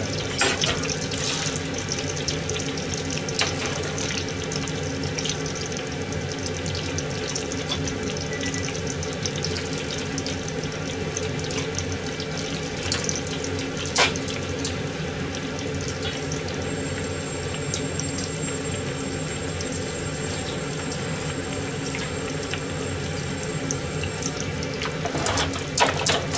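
Food deep-frying in a pot of oil, sizzling and bubbling steadily, with a few sharp clicks, the clearest about halfway through and a cluster near the end.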